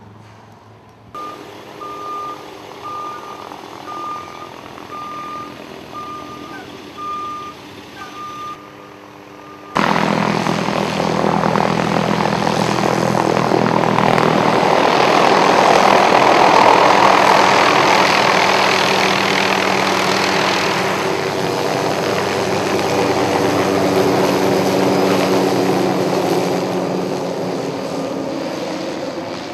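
A truck's reversing beeper sounds about once a second over an idling engine. After a cut about ten seconds in, a firefighting helicopter flies low overhead: its rotor and engine come in loud, peak mid-way, and fade slowly toward the end.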